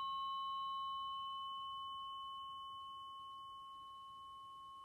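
A Biofield Tuning tuning fork ringing on after being struck: one pure, steady tone that slowly fades away.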